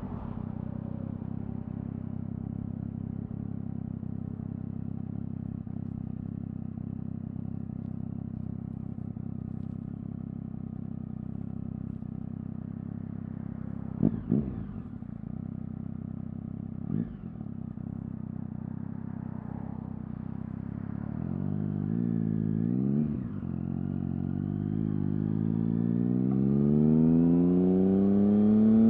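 Triumph Speed Triple R's three-cylinder engine through an Arrow exhaust with the baffles removed, heard from the rider's seat. It holds a steady low note while cruising, with two short loud bursts about halfway through. Then the revs rise and fall briefly and climb steadily, getting louder, as the bike accelerates near the end.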